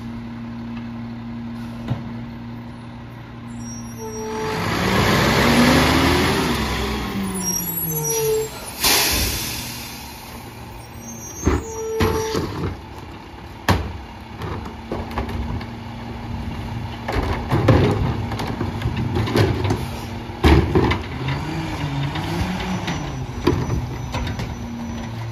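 Mack LEU garbage truck's diesel engine idling while the McNeilus rear loader's packer cycles. The engine revs up and back down under hydraulic load about four seconds in and again near the end, with a hiss of air brakes about nine seconds in. Trash cans and bags bang into the hopper in the middle stretch, and there are a few short beeps.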